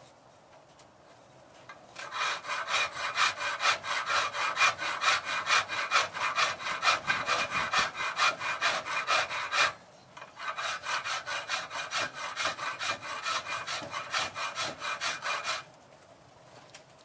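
Hand file worked quickly back and forth across a cast-aluminium part held in a vise, rasping at about four strokes a second. The filing starts about two seconds in, pauses briefly near the middle, resumes and stops shortly before the end.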